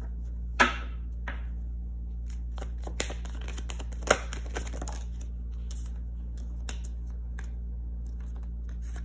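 Tarot cards being handled: a red-backed deck shuffled in the hands, with cards flicked and laid on a table. Sharp card snaps come about half a second in and again around four seconds in, with a flurry of quick rustles between them, over a steady low hum.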